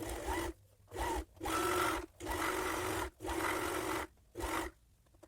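Serger (overlocker) running in six short bursts of stitching with brief stops between them, its motor giving a steady hum.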